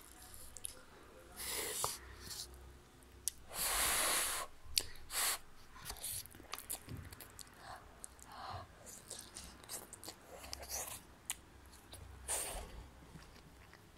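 A child chewing noodles close to the microphone, with irregular wet mouth clicks and smacks. A louder noisy rush lasting about a second comes about four seconds in.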